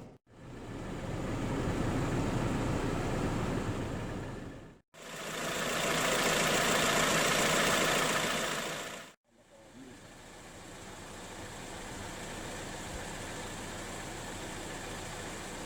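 A car engine idling, heard in three short clips cut together with brief silent gaps. The middle clip carries a brighter, louder hiss over it.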